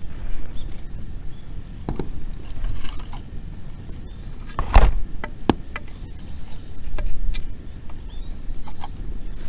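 Wood fire crackling, with a handful of sharp pops (the loudest about halfway through) over a steady low rumble.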